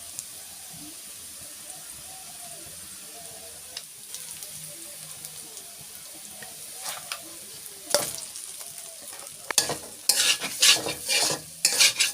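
Food sizzling as it fries in hot oil in a pan, with a utensil stirring and scraping against the pan; the scraping and clattering get louder and more frequent in the last few seconds.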